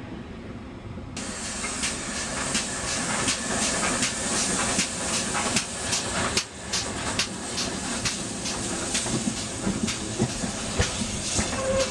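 GWR steam tank locomotive hissing steam, with a quick series of sharp beats of about three to four a second as it pulls away along the platform with its coaches.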